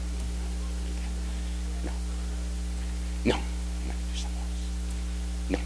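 Steady electrical mains hum from the sound system, with a few brief faint sounds from the room, the sharpest about three seconds in.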